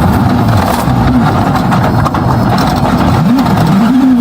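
Rally car engine at full throttle, its pitch repeatedly rising and dropping as the driver accelerates, lifts and changes gear, over gravel and road noise.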